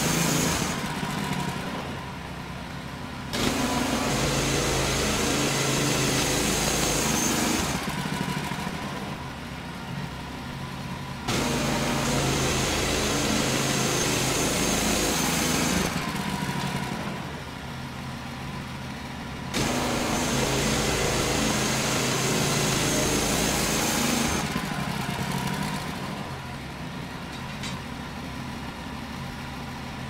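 Wood-Mizer LX55 portable band sawmill running. The engine hums steadily throughout. Three times it runs loud for four to five seconds with a bright, hissing cutting noise as the band blade goes through pine, starting abruptly at about 3, 11 and 19 seconds in. Between these stretches it drops back to a quieter, lower run.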